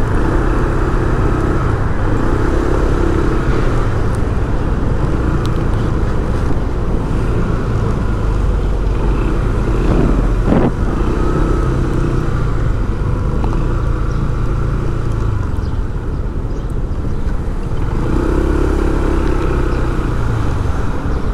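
Road traffic running steadily, a continuous rumble of car and motorcycle engines, with one brief louder sound about ten and a half seconds in.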